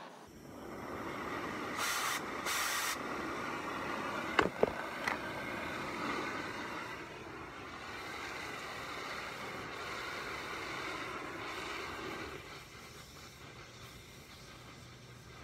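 Oxy-fuel cutting torch hissing steadily while cutting into a steel forklift fork, with two brief louder blasts around two and three seconds in and two sharp pops a little after four seconds. The hiss drops lower about twelve seconds in.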